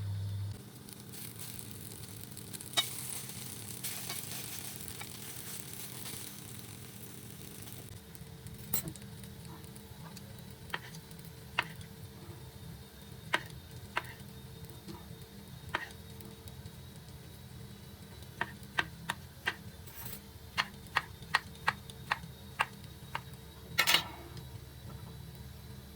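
Kitchen sounds: a hiss like food sizzling for several seconds, then a utensil clicking against cookware, in scattered taps and then a quicker run of about two clicks a second as something is stirred.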